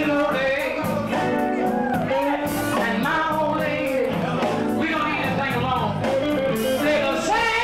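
Live soul-blues band playing a slow song, with a man singing over it.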